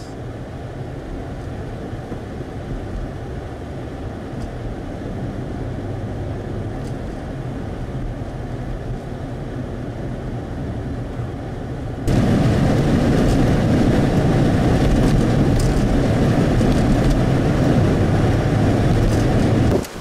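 Steady road and engine noise inside a vehicle driving through a blizzard. About twelve seconds in it abruptly becomes louder and hissier, and stays that way.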